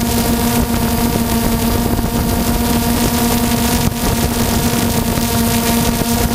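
Multirotor drone's motors and propellers running steadily at a hover, a constant buzzing whine with a noisy rush of air, as heard from the camera carried on the aircraft.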